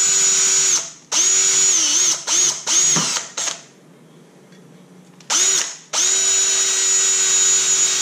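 Electric drill whining at a steady pitch in short trigger pulls, then a pause around the middle, then one long steady run, as it drills a starter hole in a metal grille filler panel for a step bit.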